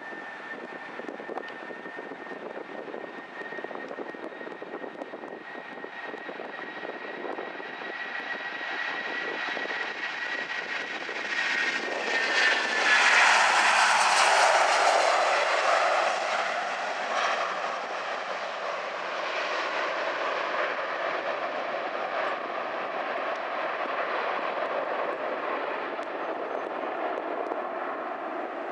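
Boeing 757-200's twin jet engines at takeoff power as it rolls, lifts off and climbs out: a steady high whine over a broad roar. The whine drops in pitch as the jet passes about halfway through, where the sound is loudest, then a lower, broader roar slowly fades as it climbs away.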